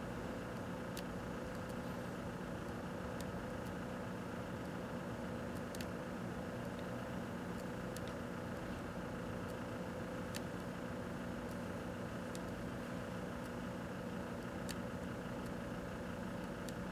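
1984 Kenmore microwave oven running with a steady hum while bubblegum heats inside it, with occasional sharp clicks scattered through.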